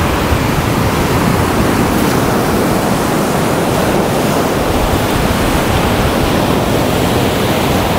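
Ocean surf breaking and washing up the beach, a steady loud rush, with wind rumbling on the microphone.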